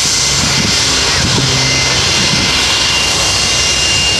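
Fokker 100 jet taxiing, its two rear-mounted Rolls-Royce Tay turbofans running at low taxi power. The sound is a steady rushing hiss with two thin high whining tones held throughout.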